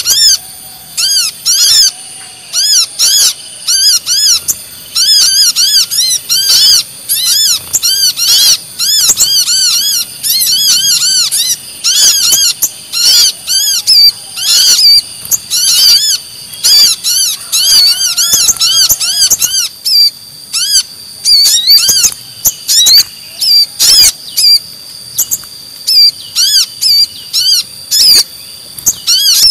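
Bird-lure recording of brown-throated sunbird (kolibri kelapa) calls mixed with spiderhunter (sogon) calls: rapid, high chirps in quick bursts with short gaps between them. A steady high tone runs beneath.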